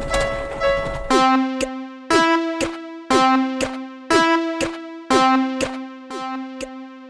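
Synthesized level-crossing alarm ringing in a keyboard-like tone, struck evenly about twice a second in an alternating strong-light 'kan kan' pattern. It starts about a second in, when a noisy rumble under steady tones stops.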